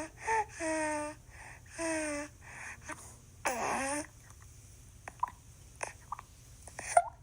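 Recorded newborn baby sounds: four short whimpers that fall in pitch over the first four seconds, then a few soft clicks and little squeaks.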